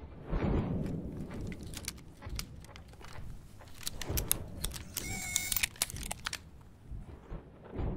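Foley of metal gear being handled: a swish of movement near the start, then a run of small metallic clicks and clinks, with a short electronic whirring tone about five seconds in.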